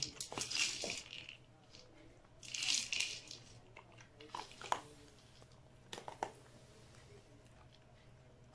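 Dry dog food rattling inside a plastic treat-dispensing ball as a dog noses and paws it across the carpet, in two short spells, followed by a few light clicks as the dog picks at the spilled food.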